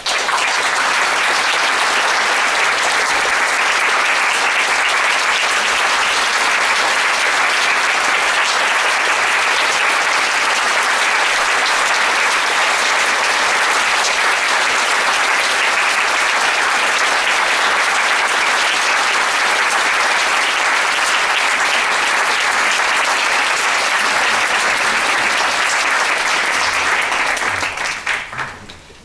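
Audience applauding in a concert hall, starting suddenly at full strength, holding steady, then dying away near the end.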